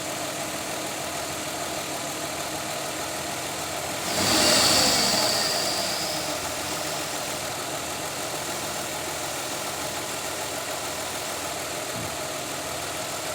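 2003 Mazda Tribute's V6 engine idling, revved briefly about four seconds in and sinking back to idle over the next couple of seconds, with a high whine during the rev. The owner says the repair has taken care of the misfire from the arcing coils.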